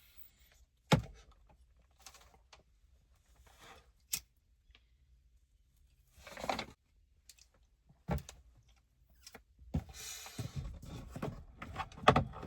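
Scattered knocks and clicks of things being handled, with a sharp knock about a second in and a busier run of knocks and rustling in the last couple of seconds.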